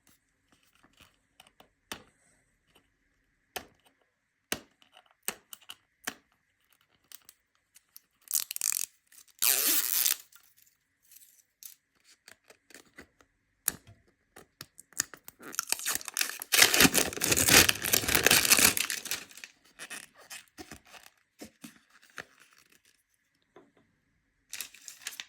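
Perfume packaging being torn open and handled: scattered small clicks and taps, a burst of tearing about eight seconds in, and a longer, louder stretch of tearing and crinkling from about fifteen to nineteen seconds in.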